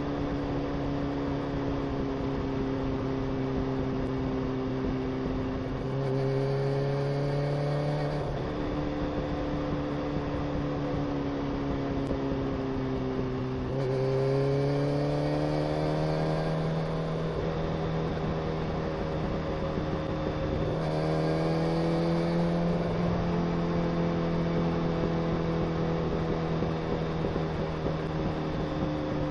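Honda CBR motorcycle engine running under way, its pitch climbing three times, about six, fourteen and twenty-one seconds in, and easing off slowly in between.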